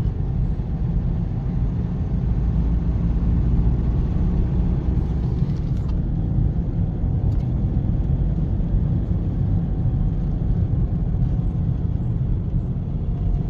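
Steady low rumble of engine and tyre noise heard from inside the cabin of a Toyota Hilux cruising along an open highway.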